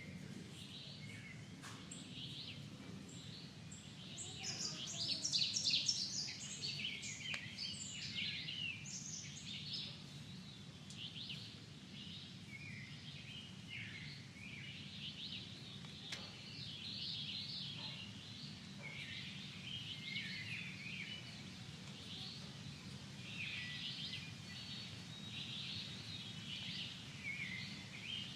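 Nature-sounds track of birdsong: many birds chirping and trilling over a steady low background hum, busiest and loudest about five seconds in.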